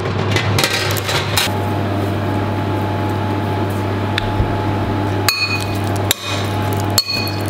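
Steady electric hum of a running kitchen appliance, with a few clicks and knocks in the first second and several abrupt breaks in the second half.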